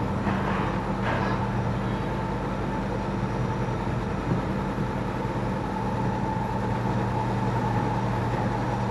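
Steady drone of a running vehicle: a low, even hum with a fainter steady whine above it.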